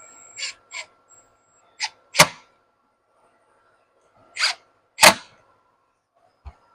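Clicks and clacks of tools and parts being handled while a steering wheel is reassembled: about seven sharp, irregularly spaced knocks, the loudest two about two and five seconds in.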